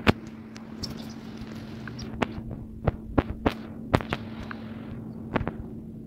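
Irregular sharp taps on a phone's touchscreen while drawing, about ten in all, the loudest right at the start, over a steady low hum.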